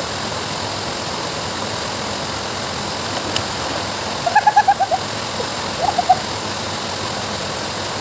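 Waterfall pouring over a small concrete weir into a pool: a steady rushing of falling water. Just after the middle a quick run of about seven short, high repeated notes cuts through, then a shorter run of three about a second later.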